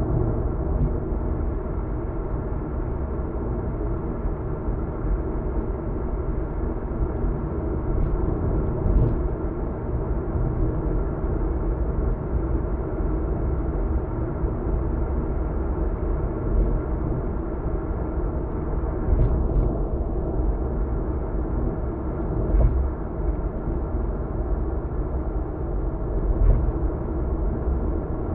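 Car driving at expressway speed: steady tyre and engine road noise, with a few light knocks.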